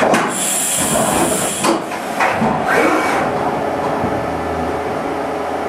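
Haas VF-2 CNC vertical mill between operations, changing to a spot drill: a sharp hiss of air lasting about a second near the start, a few short mechanical clunks and whirs, then a steady low spindle hum from about four seconds in as the drill is brought down to the part.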